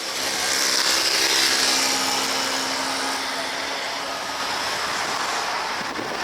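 Street traffic noise with a vehicle passing close, loudest about a second in, then a steady traffic rush.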